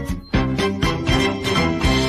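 Karaoke backing music for a Japanese ballad, with strings; a brief dip just after the start, then a run of quick notes.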